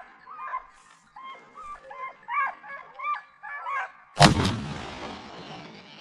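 Hunting hounds baying in quick repeated calls as they run boar, then a single loud rifle shot about four seconds in, its report rolling away in a long echo across the slope.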